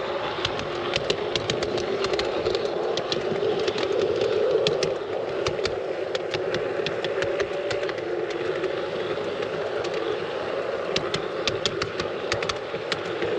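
G scale model train running along garden railway track: a steady hum from the locomotive's motor and gearing, with sharp clicks of the wheels over rail joints and pointwork, in clusters at the start and again near the end.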